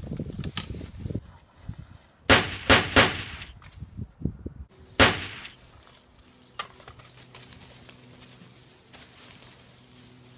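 Four sharp gunshots with short echoing tails: three in quick succession a couple of seconds in, and a fourth about five seconds in. Before them come footsteps rustling through dry leaves, and after them a faint steady low hum.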